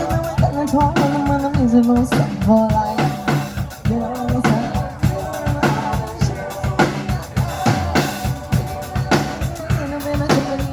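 Live band playing at a sound check: a drum kit, with kick drum and snare, keeps a steady beat under pitched instruments.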